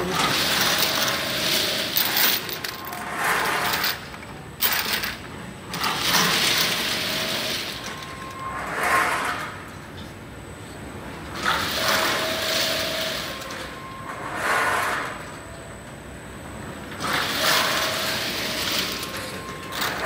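Automatic liner washing machine running its wash cycle: a long hissing rush of water spray repeats about every five and a half seconds, with a shorter rush between each.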